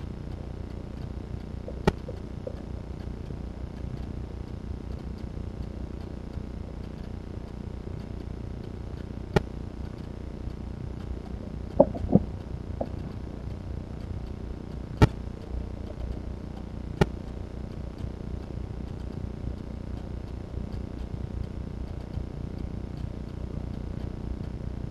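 Steady low background rumble, broken by about six sharp knocks, two of them close together about twelve seconds in: plastic buckets being knocked and tipped over by playing bobcat kittens.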